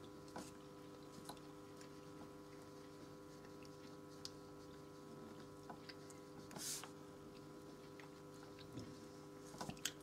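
Near silence: a faint steady electrical hum, with a few soft scattered ticks and one brief rustle about two-thirds of the way through.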